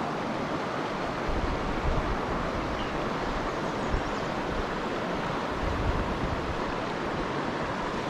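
Steady rush of a fast, high stream running with snowmelt runoff, with a few low gusts of wind buffeting the microphone.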